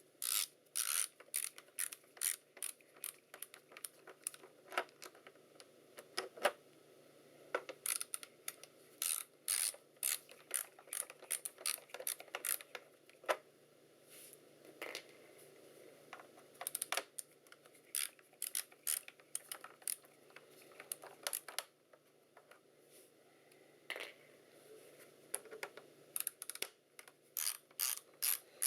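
Screwdriver working the small screws out of a laptop's back panel: clusters of sharp little clicks and ticks that come and go, with a short lull about two-thirds of the way through.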